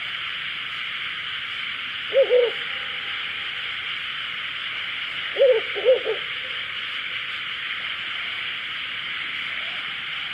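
Ural owl hooting: a short low hoot about two seconds in, then a longer group of hoots about five and a half seconds in, over a steady hiss.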